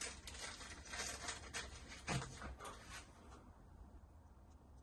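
Faint light clicks and rattles of keys being handled and tried in a metal toolbox lock, tapering off after about three seconds.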